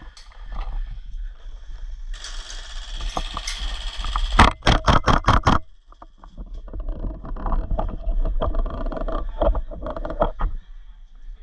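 An airsoft gun fires a quick burst of about seven sharp shots, a little over four seconds in. Rustling movement comes before and after it, over a steady low rumble of wind on the microphone.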